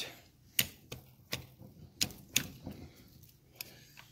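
Sharp metallic clicks and clacks, about seven at irregular intervals, as a 1971 Triumph Tiger 650's clutch hub, primary chain and sprocket are jiggled onto the splined shafts, the parts catching on the splines.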